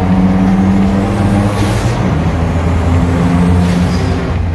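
Turbocharged Infiniti G35's VQ V6 engine running under way with a steady drone. Its note drops about one and a half seconds in, and the turbo's blow-off valve hisses twice, near then and again about four seconds in.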